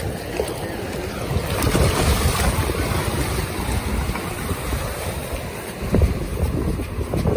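Wind buffeting the microphone over surf washing through the shallows, with a single thump about six seconds in.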